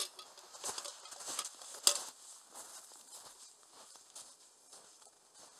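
Footsteps crunching through snow, an uneven run of crunches with one sharper crack about two seconds in.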